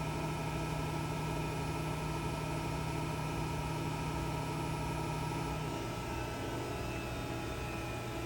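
2008 Studer S40 CNC cylindrical grinder running: a steady mechanical hum with several whining tones over a hiss. A strong low hum stops about six seconds in, while the rest runs on.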